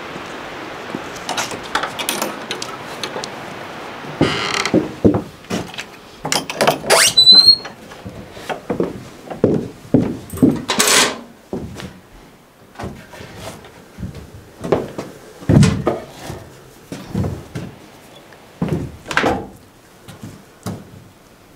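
A few seconds of steady hiss, then a run of irregular knocks, thuds and clatters of things being handled, like a door and objects being moved and set down, with a brief squeak about seven seconds in.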